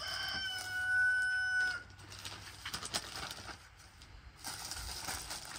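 A rooster crowing once: one held call of almost two seconds at the start, ending with a slight upturn.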